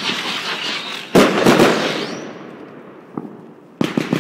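Fireworks going off: a loud bang about a second in, followed by crackling that fades away, and a short rising whistle. Near the end a new quick series of sharp bangs starts as another firework goes up.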